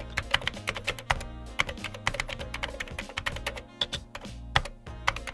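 Rapid, irregular typing on a Royal Kludge RK71 mechanical keyboard, its keys clacking several times a second, over steady background music.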